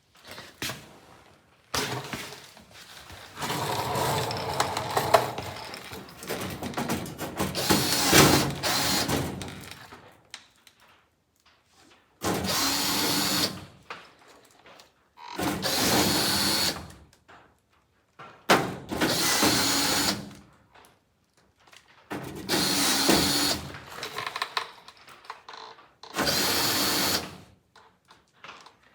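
Power drill-driver run in five short spurts of a second or two each, with pauses between, driving in screws. Before that, several seconds of irregular clattering and knocking.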